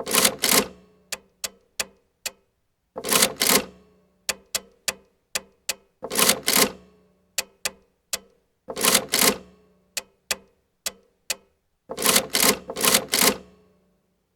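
Mechanical adding machine in use: a few sharp key clicks, then a longer clattering run of the mechanism, repeating about every three seconds.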